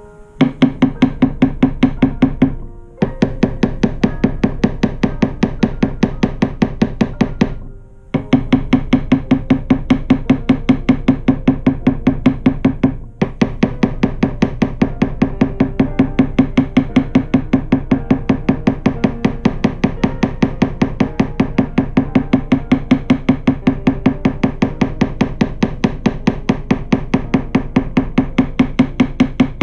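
Rapid, even tapping on the frets of a clamped guitar neck as fret wire is seated with a hand tool, a steady low ring sounding under the taps. The tapping stops briefly about three and eight seconds in.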